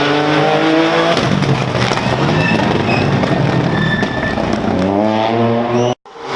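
Rally car engine at full throttle, its pitch climbing hard twice: up to about a second in, then again near the end. A rough rushing noise fills the middle. The sound cuts off abruptly just before the end.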